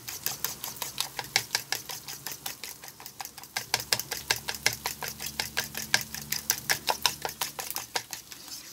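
Fork beating raw eggs in a bowl: quick, even clicks of the fork striking the bowl's side, about five a second. A faint low hum runs underneath from about four seconds in.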